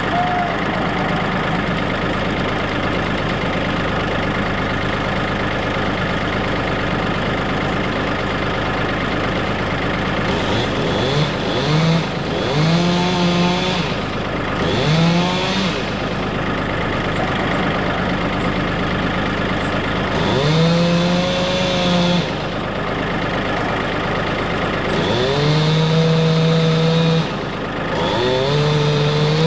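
Chainsaw revving up to full throttle about six times, each cut held for one to two seconds before dropping back, as it saws a felling cut through a tree trunk. Underneath, the tractor that powers the winch idles steadily.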